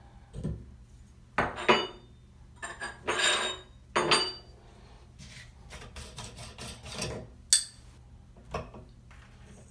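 Metal shower handle being pulled off a Delta 17 Series valve and the plastic cartridge worked by hand in the valve body: irregular clinks, clicks and scraping, with a sharp click near the end. The cartridge is being taken out to turn it around after it went in upside down.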